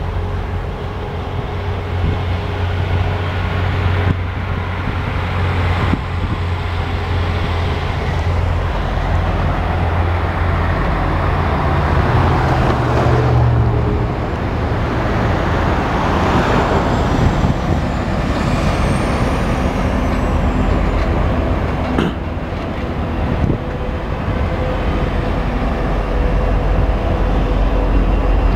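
Diesel freight locomotive engine rumbling low and steady as the train approaches, mixed with passing road traffic. A few faint high squealing glides come about two-thirds of the way through, and two sharp clicks follow shortly after.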